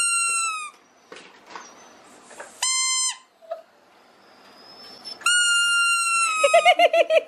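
A rubber squeaky toy squeaked three times in flat, high-pitched squeaks, and near the end a Siberian husky answering with a warbling, pulsing howl.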